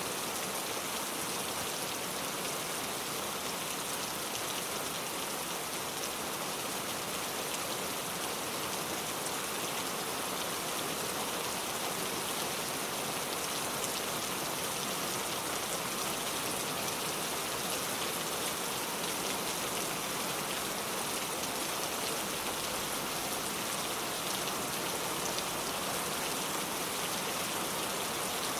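Steady rain falling, an even hiss with faint pattering of drops on a surface.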